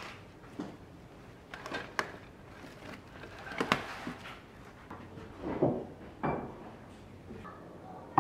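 Household objects being handled indoors: a series of separate light knocks, clunks and short scrapes a second or two apart, the loudest about four seconds in.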